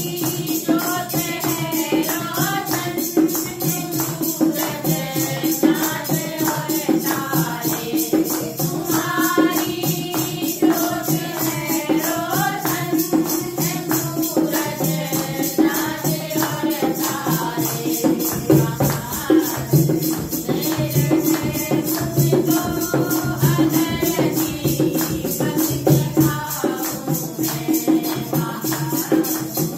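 A group of women singing a Hindi devotional bhajan together in unison. A steady beat runs under the voices from hand clapping, a dholak and jingling hand percussion.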